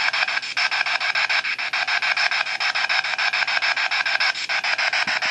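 Spirit box sweeping the FM radio band: loud radio static chopped into rapid clicking slices, about ten a second, as it skips from station to station.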